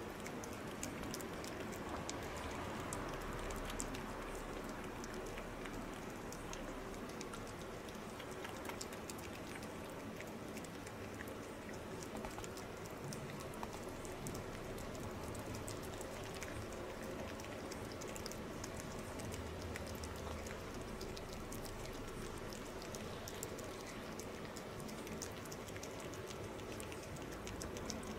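Two cats eating dry kibble: a steady patter of small crunches and clicks as they chew.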